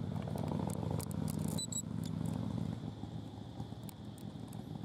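Low rumble of a motor vehicle's engine running nearby, louder for the first two seconds or so and then easing off, with a few faint clicks.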